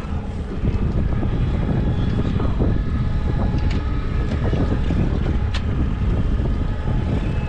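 Wind buffeting the microphone over the steady drone of a boat's outboard motor running at trolling speed, with a few brief sharp clicks.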